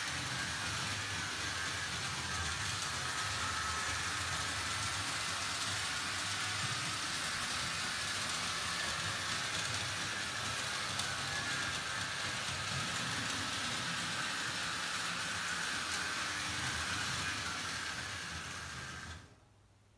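Märklin H0 model freight train, a 3072 diesel locomotive and its wagons, running on metal M-track: a steady rumble and rattle of motor and wheels on the rails, which cuts off suddenly near the end.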